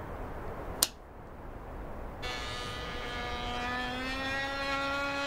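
Small engine of a radio-controlled model biplane starting up: a sharp click about a second in, then the engine runs from about two seconds in with a whine that rises slowly as it revs.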